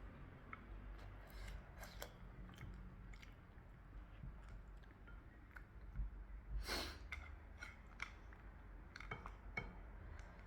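Close-miked eating: soft chewing with scattered small clicks and clinks of utensils against a plate. About seven seconds in, one louder noisy sound lasts about half a second.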